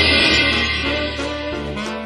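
Background music: a loud chord that fades over the first second and a half, with instrumental notes going on under it.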